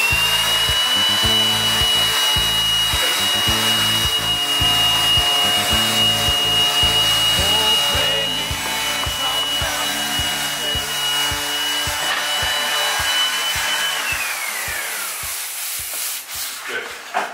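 Electric palm sander running with a steady high whine, which slides down in pitch as the motor winds down about fourteen seconds in. Background music with a steady beat plays underneath.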